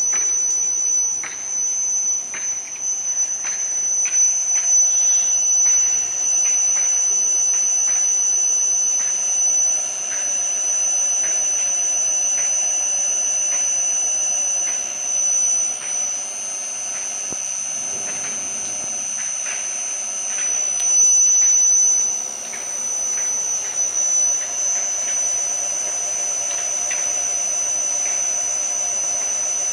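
Paldo PTD-32 drill-tapping machine running, with a steady high-pitched whine and a lower hum under it. Light ticks come roughly once a second for most of the stretch.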